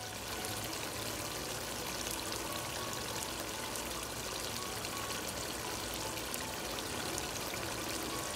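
Beef bhuna sizzling and crackling in its own risen oil in the pot: a dense hiss full of tiny pops, starting and stopping abruptly.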